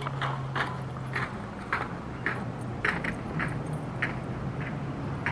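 Footsteps crunching on a needle-strewn trail at a steady walking pace, about two steps a second, over a low steady hum.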